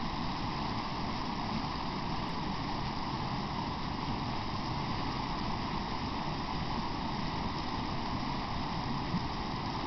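Steady rush of a river running over shallow riffles.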